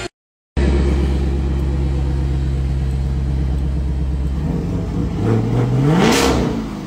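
Chevrolet Camaro convertible's engine idling steadily, then revved, with a short blip about five seconds in and a bigger rise peaking about a second later before the revs fall back.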